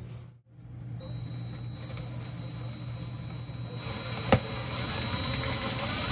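Craftsman cordless drill starting to bore a pilot hole up through an RV ceiling panel: a sharp click a little past halfway, then the drill runs with a fast rattle that grows louder near the end.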